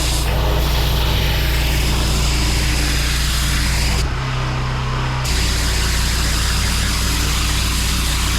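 Pressure washer running, its engine humming steadily under the loud hiss of high-pressure water spraying onto block paving. About four seconds in, the spray cuts out for about a second and the engine note changes, then the spray resumes.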